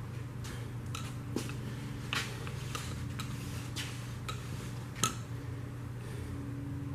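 Light metallic clicks and scrapes as metal engine parts, a piston and connecting rod just removed from the block, are handled, roughly one a second with a sharper clink about five seconds in. Under them runs a steady low hum like a shop fan.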